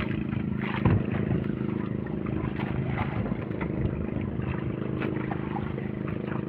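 Boat engine running steadily at an even speed, with a sharp knock about a second in and a few lighter knocks after.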